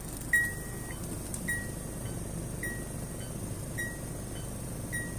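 A car's electronic warning beeper sounding a short high beep about once every 1.2 seconds, five times, with a steady low hum underneath.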